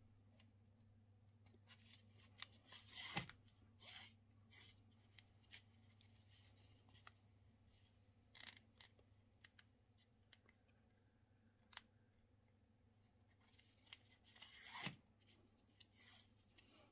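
Faint rustling and rasping of a needle and thread being drawn through the tightly wound thread surface of a temari ball, with fingers turning the ball; the two loudest drawn-out rasps come about 3 seconds and 15 seconds in.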